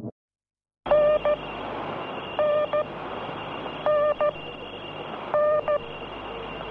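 After a moment of silence, an electronic beep tone repeats four times, each beep short and about a second and a half apart, over a steady hiss. The sound is cut off above the mid range, as if heard through a telephone line.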